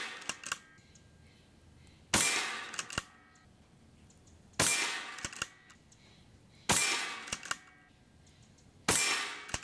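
A Daystate Delta Wolf PCP air rifle firing .25-calibre JSB pellets: four shots about two seconds apart. Each is a sharp report that dies away over about half a second, followed by a few faint clicks.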